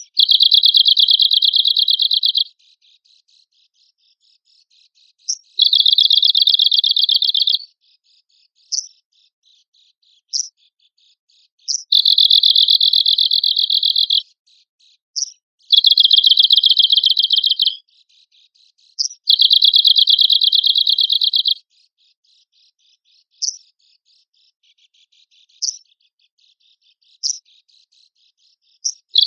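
Arctic warbler singing: five dry, rapid, cricket-like trills of about two seconds each, every few seconds, with short single high call notes between them.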